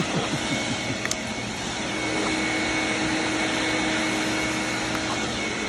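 Leaf blower running steadily: a constant rush of air with a faint steady whine.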